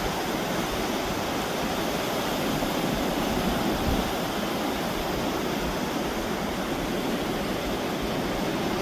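Steady rush of ocean surf, an even wash of noise with no breaks.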